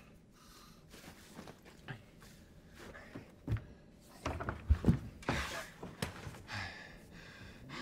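A man's movements, with a few dull thumps close together a little under five seconds in, followed by breathy gasps as he straightens up.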